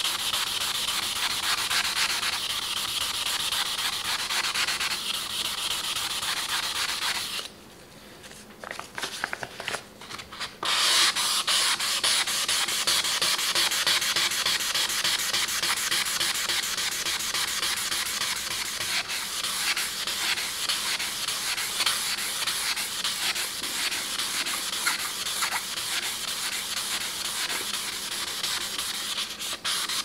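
Sandpaper rubbed in rapid back-and-forth strokes over the steel blade face of a Victorinox chef's knife, polishing out scratches. The rubbing stops for about three seconds some seven seconds in, then resumes.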